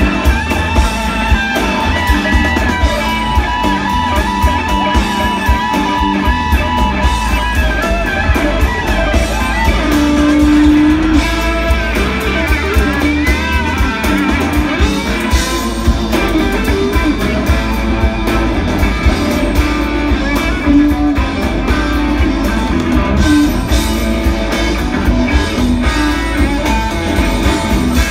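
A live rock band jamming, heard from within the audience: a sustained, bending electric guitar lead over bass and drums.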